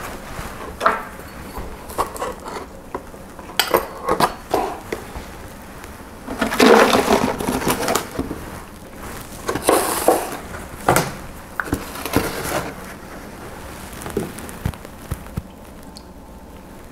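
Thin clear plastic bottles and a gallon jug handled on a countertop while a soil sample is mixed with distilled water: scattered knocks and crinkles of plastic, with a longer rushing pour about seven seconds in and another shorter one near ten seconds.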